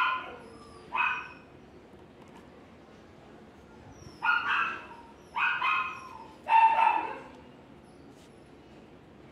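A dog barking in short bouts: once at the start, again about a second in, then three more barks between about four and seven seconds in.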